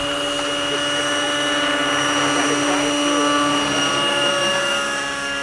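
Nitro-engined radio-controlled model helicopters in flight overhead, giving a steady engine-and-rotor whine at an even pitch that swells a little just past the middle.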